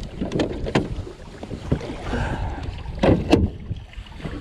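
Clunks and knocks of a bow-mounted electric trolling motor being lifted and stowed onto the aluminium bow deck of a small boat, over wind noise. There are several sharp knocks, the loudest pair about three seconds in.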